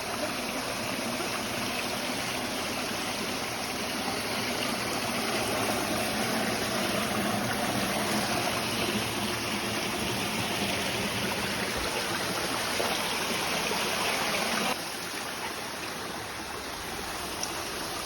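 Steady rushing of a waterfall and its stream, running high after heavy rain. It grows a little louder after a few seconds, then drops suddenly about three-quarters of the way through and carries on more softly.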